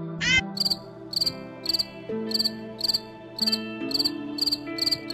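Cricket chirping in a steady rhythm, short chirps about two to three times a second, starting just under a second in, over soft background music with sustained notes. A short bird call sounds at the very start.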